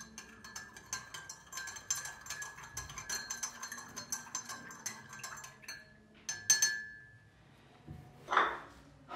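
Teaspoon stirring drinks in ceramic mugs, clinking rapidly against the sides with a ringing tone. About six and a half seconds in comes a single louder clink, and near the end a short breathy noise.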